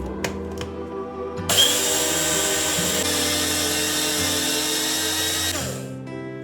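Electric mixer grinder running for about four seconds, grinding roasted cumin seeds into powder. It starts suddenly about a second and a half in and winds down near the end, over background music.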